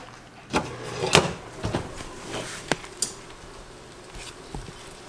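Kitchen handling noises while a meal is made: about half a dozen separate knocks and clicks, like drawers, cupboard doors and dishes, the loudest about a second in.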